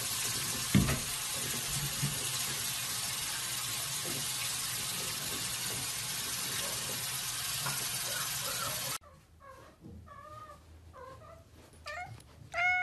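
Tap water running steadily into a sink, with a short thump about a second in. It cuts off suddenly, and a cat then meows several times in short calls, the last one the loudest.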